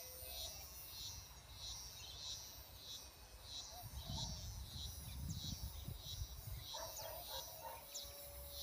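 An insect chirping in a steady rhythm, about two high chirps a second, with birds calling near the end. A low rumble rises briefly in the middle.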